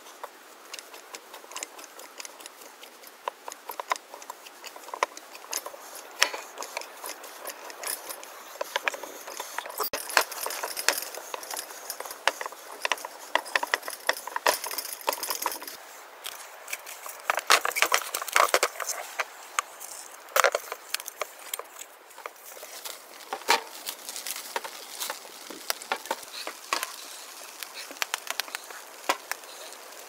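Hands mixing and kneading sticky bread dough in a glass bowl: irregular wet squelches, slaps and small clicks against the glass. About halfway through, cling film is pulled off its roll with a crackly plastic sound, and the dough is tipped out onto the table near the end.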